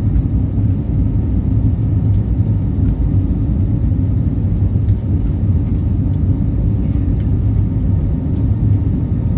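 Citilink airliner taking off: a loud, steady low rumble.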